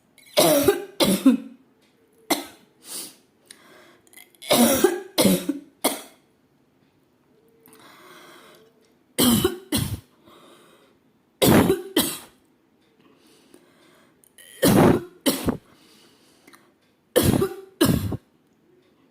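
A woman coughing on purpose, hard and short, in about seven groups of two or three coughs with short pauses between them.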